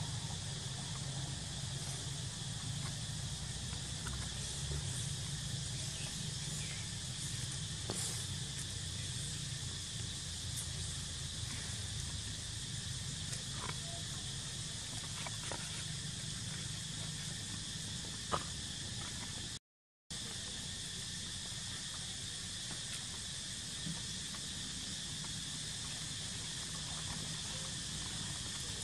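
Steady outdoor ambience: a constant hiss with a high, even insect drone. There are a few faint clicks, one sharper click about two-thirds of the way through, and the sound cuts out completely for a moment shortly after.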